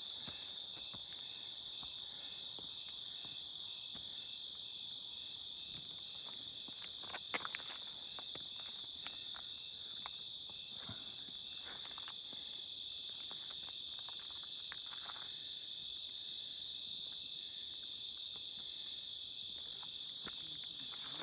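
Night chorus of crickets: a steady, unbroken high-pitched trill with a faint pulsing edge. A few short crunches of footsteps on rubble come through it, the loudest about seven seconds in and again around eleven to twelve seconds in.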